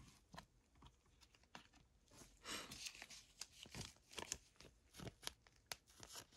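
Faint crinkling of thin clear plastic and light clicks and taps as trading cards are handled and set down, scattered irregularly.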